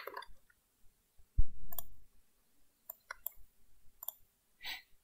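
Scattered computer mouse and keyboard clicks, with one louder low thump about a second and a half in.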